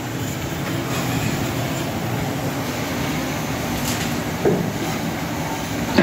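Steel-bodied industrial washing machine running with a load of goods inside, a steady rumbling churn, with a short knock about four and a half seconds in and another at the end.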